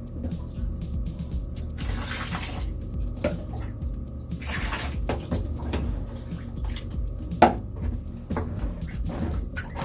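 Water poured from a plastic cup over a wet cat standing in a plastic tub, in two splashing pours about two seconds and four and a half seconds in, with small splashes and clicks of plastic between. A sharp knock comes about seven and a half seconds in.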